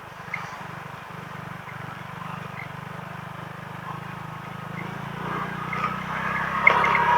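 Honda PCX160 motor scooter's single-cylinder engine running steadily while riding, with road and wind noise. The sound grows louder over the last couple of seconds.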